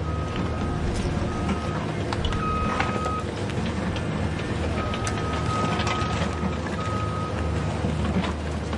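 Remote-control toy excavator working: a steady low drone with a thin high motor whine that starts and stops again and again as the boom and bucket move.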